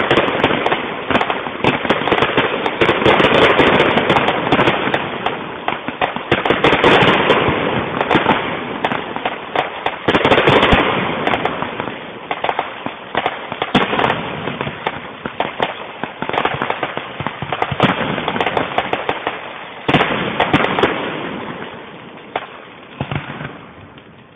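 Fireworks display: a dense, rapid run of crackling and bangs from bursting aerial shells, thinning out and fading away over the last few seconds.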